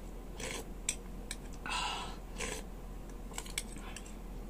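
Close-up eating sounds: a metal spoon clicking against a stainless steel bowl of beef-foot soup, with wet mouth sounds of eating and a short noisy slurp or sip about two seconds in.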